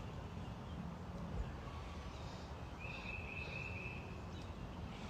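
Quiet outdoor ambience: a steady low rumble, with one high, steady call held for about a second and a half starting nearly three seconds in.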